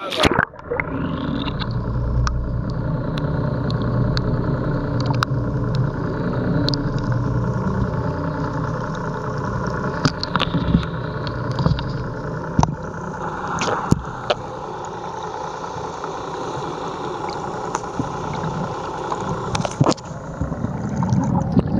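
Boat engine running steadily, heard through the water, with scattered sharp clicks over the drone.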